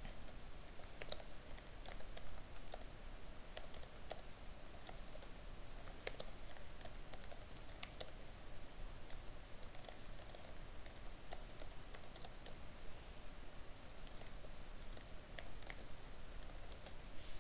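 Typing on a computer keyboard: a run of irregular key clicks, with short pauses between bursts of keystrokes.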